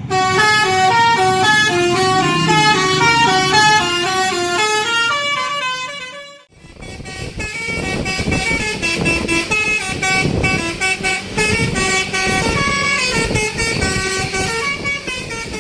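Basuri 'telolet' musical horn on a bus playing a quick melody of stepping notes, several tones sounding together. It cuts off about six seconds in and a second telolet horn melody starts, with more background rumble under it.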